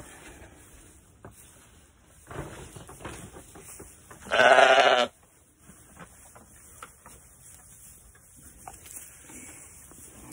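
Sheep bleating: one long, wavering bleat about four seconds in, with faint rustling and knocks around it.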